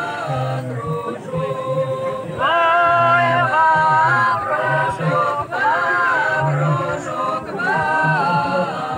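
A group of voices singing together in harmony, with long held notes that move up and down in steps.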